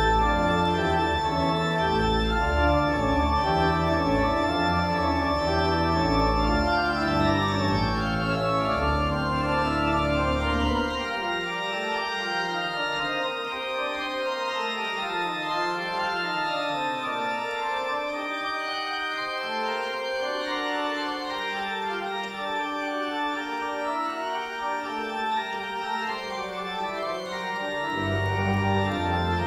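Church organ being played: sustained chords over deep bass notes for about the first ten seconds, then the deep bass drops out and lighter moving lines continue in the middle register. The deep bass returns near the end.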